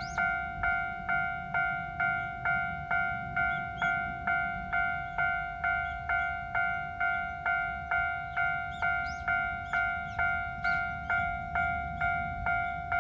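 Japanese railroad crossing warning bell ringing steadily, a dinging tone repeating about twice a second with each strike dying away quickly, over a continuous low rumble.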